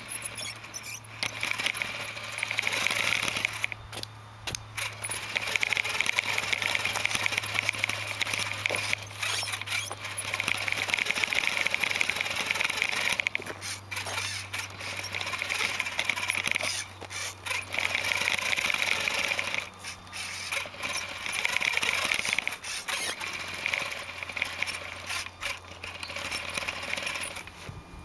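A Lego buggy's electric motor and gear train whining as it drives over a bumpy dirt trail, recorded from a camera riding on the buggy. The whine comes in surges with short breaks several times, mixed with irregular knocks and rattles from the bumps.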